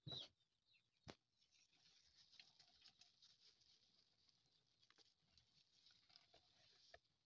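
Near silence: fingers faintly rustle in loose soil and crumpled plastic sheeting, with two soft clicks near the start.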